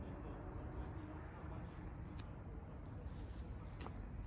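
A cricket chirping in a steady high-pitched trill with short breaks, over a low background rumble. A couple of faint clicks come in the second half.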